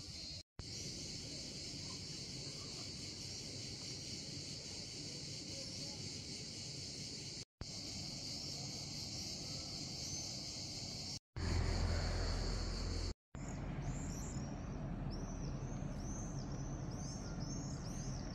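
Insects shrilling steadily in a high-pitched chorus, cut by brief silent gaps. About two-thirds of the way through there are a couple of seconds of low rumble. After that comes a run of short, evenly repeated chirps.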